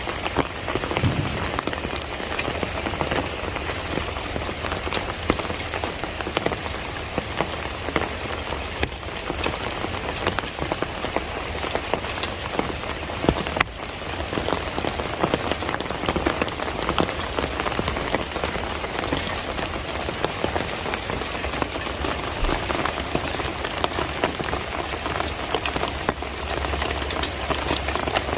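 Steady rainy-season rain falling, a dense even hiss of many separate drop impacts with a sharper single drop tick about halfway through.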